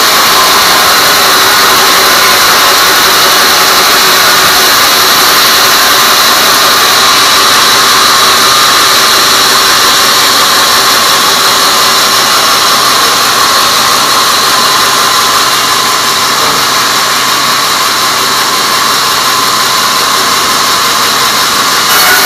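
Sawmill band saw ripping a teak log lengthwise, loud and steady, with a high-pitched whine over the hiss of the blade cutting through the wood.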